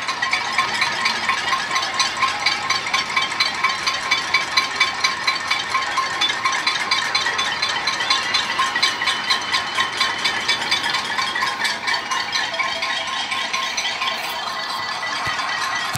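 Many households banging metal pots, pans, basins and spoons together, a dense ringing metal clatter that pulses a few times a second and evens out after about twelve seconds. It is a pot-banging protest, neighbours joining in one after another.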